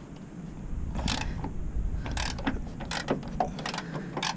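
Hand ratchet with a 14 mm socket on an extension clicking as it is worked back and forth on a bolt, in a series of uneven strokes.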